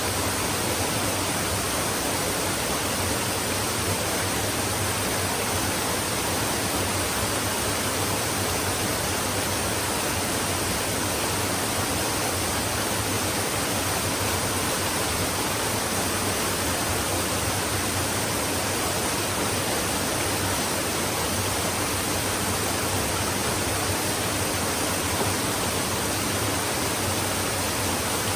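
Flowing stream: a steady, unbroken rush of running water with no distinct splashes or other events.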